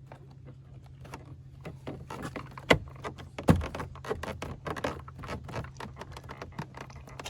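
Plastic door-trim switch panel being pressed and snapped back into the truck door: many small plastic clicks and rattles, with two sharp knocks about a second apart near the middle.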